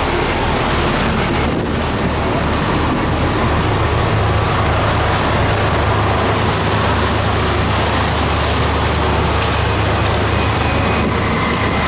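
A ship's engine running with a steady low hum, under the rush of choppy waves breaking against the hull and pier and wind on the microphone.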